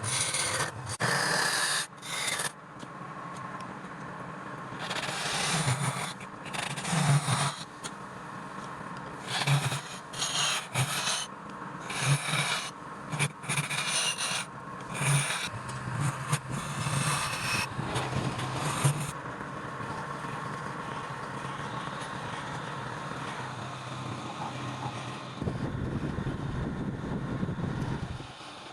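Wood lathe turning while a hand-held turning tool cuts the spinning wood in repeated short scraping passes. About two-thirds of the way through, the cutting stops and a steadier running noise remains, with a low rumble near the end.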